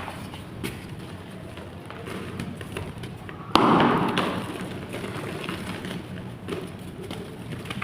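Chalk clay blocks crumbling, with scattered light crackles and one sharp crunch about three and a half seconds in that trails off into about a second of crumbling.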